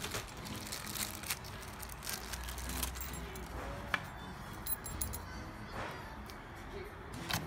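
Small keys clinking, with scattered light clicks and knocks as they are handled and fitted into the lock of an e-bike battery mount.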